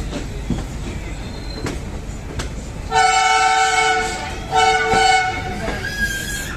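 Indian Railways WDP3A diesel locomotive's horn sounding two blasts, a longer one about three seconds in and a shorter one just after, over the steady rumble and clatter of the moving train.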